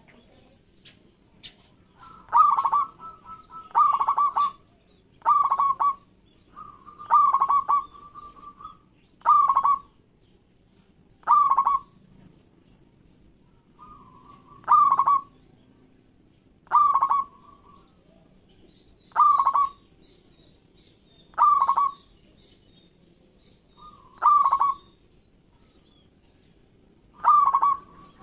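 Local zebra dove (perkutut lokal) cooing its staccato song, a rapid stuttering phrase repeated about a dozen times, one every two seconds or so, some phrases opening with a short held note.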